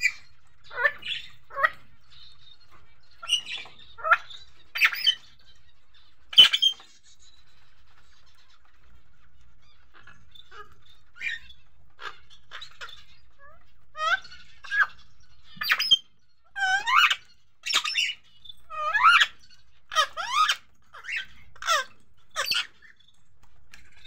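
Caged rose-ringed (Indian ringneck) parakeets calling: a string of short chirps and squawks with quick pitch glides, scattered at first and coming thick and fast in the second half. There is one sharp click about six seconds in.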